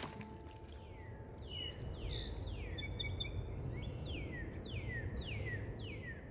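Outdoor ambience: a bird calling in a series of short chirps that slide downward in pitch, repeated about every half second, over a low steady rumble.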